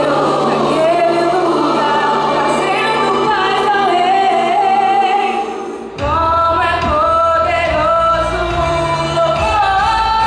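Portuguese gospel song sung by female singers with instrumental accompaniment; the music dips briefly about six seconds in, then the voices come back in full.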